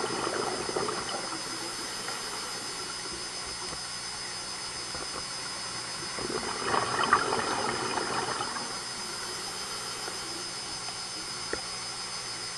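Scuba diver's exhaled bubbles gurgling out of the regulator underwater, two bursts about six seconds apart, over a steady high-pitched hum.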